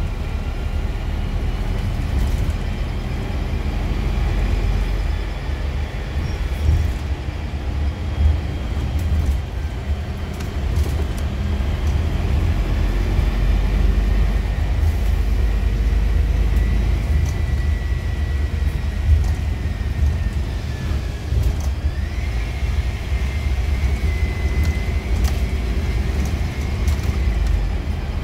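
Interior ride noise of a Scania Citywide LF CNG city bus under way: a steady low rumble from its compressed-natural-gas engine and the road. A faint high whine rises about two-thirds of the way through, holds, and drops away near the end.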